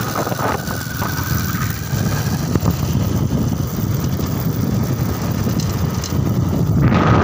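A moving road vehicle's engine and road rumble, steady and loud. A short rush of louder noise comes near the end.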